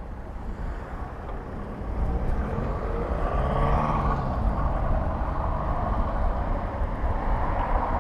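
Road traffic with a car passing close by: its tyre noise and engine swell up about two seconds in and peak around three to four seconds in, and tyre noise swells again near the end. A low rumble runs underneath.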